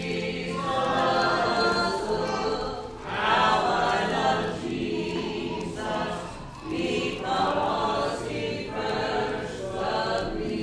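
Children and a man singing a song together without instruments, in phrases of a few seconds with short breaks between them.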